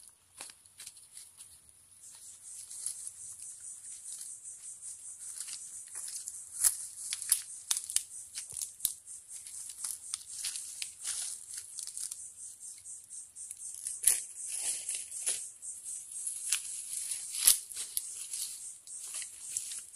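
Woven plastic sacks and plastic rubbish crinkling and crackling in irregular bursts as they are handled, over a steady high hiss that gets louder about two seconds in.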